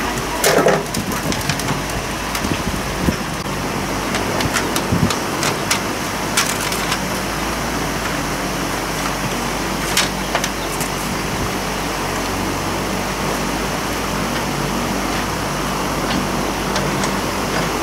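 A few sharp metal clinks of tools and loose parts while a motorbike's front wheel and fork are being taken apart by hand, over a steady background hiss.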